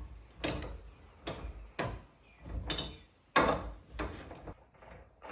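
Series of metal knocks, clanks and scraping slides from hand work on a car's front wheel hub, which is being worked off its spindle. There are about seven separate strokes, one with a short metallic ring about three seconds in.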